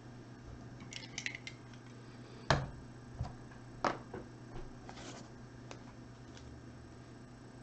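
Handling noise from small hard objects: a few light clicks about a second in, then a sharp knock about two and a half seconds in and another near four seconds, with fainter ticks after.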